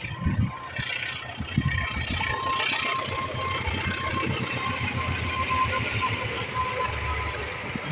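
Diesel-electric locomotive of a KAI passenger train approaching and running past, its engine rumble growing stronger as it nears, with a thin steady whine above it.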